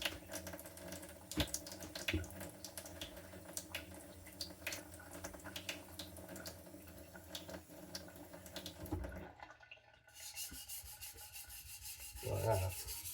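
Tap water running, with scattered light clicks and clatter. About nine seconds in it cuts off, and a steel knife blade rubs over a whetstone in quick, even strokes.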